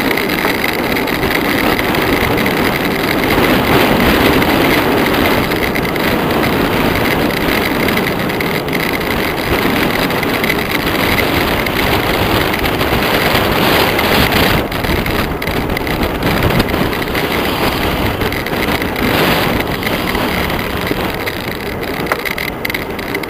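Steady rushing wind noise on the microphone of a camera riding with cyclists on a fast downhill run.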